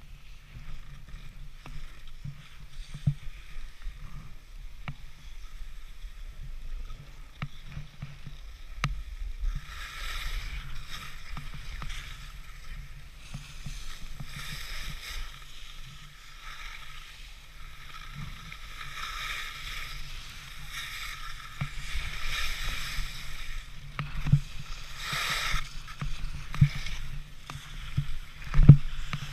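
Skis hissing and scraping over packed snow during a downhill run, the scraping coming in repeated swells with each turn from about ten seconds in. Under it runs a low rumble with frequent knocks, the loudest one near the end.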